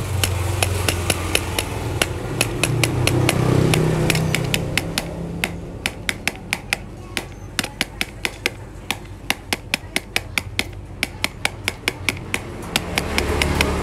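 A long run of sharp clicks, about three a second, thinning out in the middle, over a low hum.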